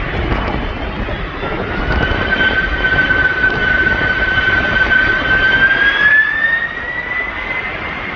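Jet aircraft engines running with a loud rumble under a high whine; the whine climbs in pitch about five to seven seconds in.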